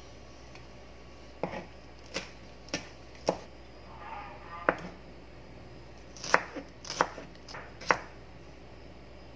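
Kitchen knife slicing shallots on a plastic cutting board: about eleven sharp, uneven knocks of the blade hitting the board, several in quick pairs in the second half.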